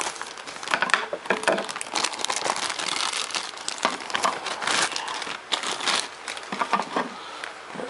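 Thin clear plastic parts bag crinkling and crackling in irregular bursts as it is handled and opened and a plastic model car body is pulled out.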